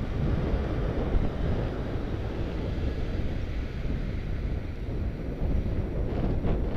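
Wind buffeting the microphone of a camera riding on a moving bicycle, a steady low rumble, with a few light rattles near the end.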